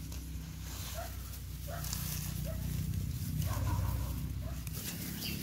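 Short, soft rising animal calls, about six of them spaced roughly a second apart, over a low steady hum.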